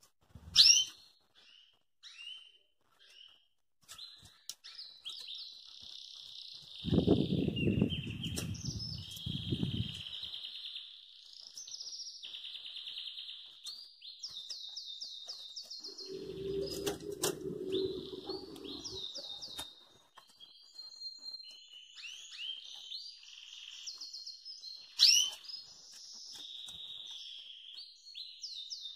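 Pintagol, a canary × hooded siskin hybrid, singing: scattered chirps at first, then from about four seconds in a near-continuous run of rapid twittering phrases and trills. Two stretches of low rumble sit underneath, about a quarter and just past halfway through, and there is a sharp click near the end.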